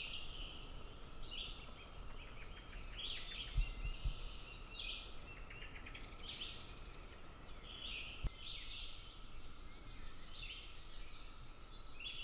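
Several songbirds singing in woodland, short chirping phrases one after another, some overlapping, over a faint steady high hum. A soft low thump about three and a half seconds in and another at about eight seconds.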